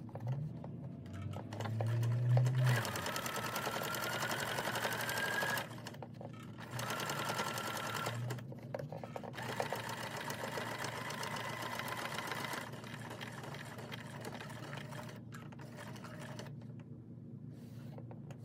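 Electric sewing machine stitching through thick quilted fabric. Its motor whine rises in pitch as it speeds up over the first few seconds, stops briefly about five seconds in, then runs again and grows quieter in the last few seconds.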